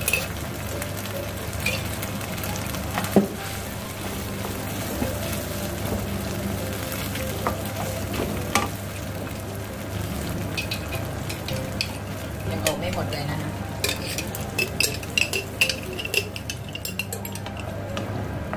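Cream sauce with bacon and onions sizzling in a nonstick frying pan while a wooden spatula stirs it, the spatula scraping and knocking against the pan now and then, most often in a quick run near the end.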